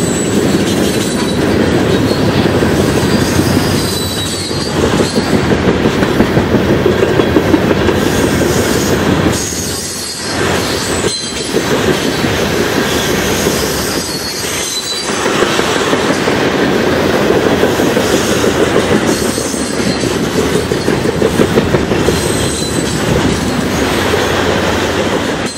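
Freight train of hopper cars rolling past close by: steady rumble of steel wheels on rail with rhythmic clicking as the trucks cross rail joints. The sound dips briefly about ten and again about fifteen seconds in.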